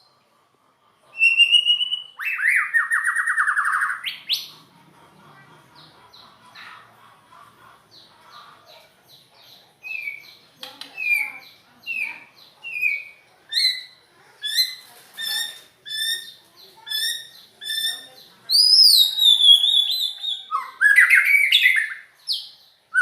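White-rumped shama singing a varied song: a loud trilled phrase early, then a run of short repeated notes at about two a second, and loud sweeping whistled phrases near the end.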